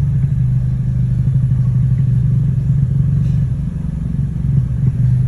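A vehicle engine running with the strange noise the customer complained of, a steady low drone with a fast rattling flutter. The mechanic traces the noise to an object someone had put there.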